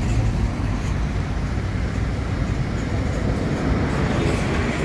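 Steady low engine rumble from road traffic and a jet airliner on the runway, growing a little louder near the end.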